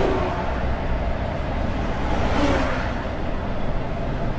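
Volvo truck driving on the road, heard from inside the cab: a steady low engine rumble with tyre and road noise that swells briefly about halfway through.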